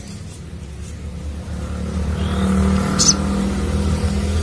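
A single short, sharp high chirp from a crimson sunbird about three seconds in, over the low, swelling hum of an engine passing in the background.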